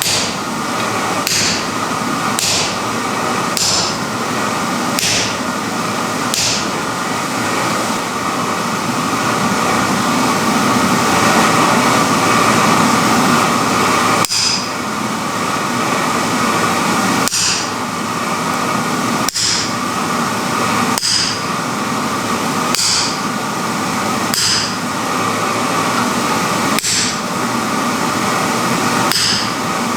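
Hammer blows striking iron being forged, each with a short metallic ring, about one every second and a half, pausing for several seconds midway before resuming. A steady rushing noise runs underneath.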